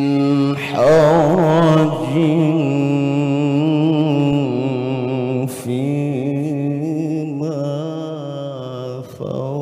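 Male qari reciting the Quran in melodic tilawah style into a microphone. He sings long held notes with rapid ornamental wavers, loudest about a second in, and breaks off briefly twice for breath.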